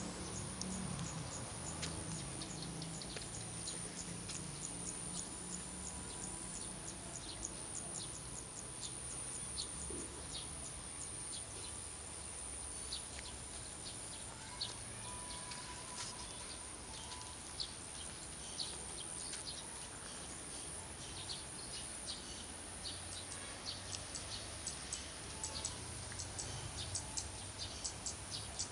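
Outdoor ambience: many short, high bird chirps over a steady, high-pitched insect drone, with a faint low rumble underneath.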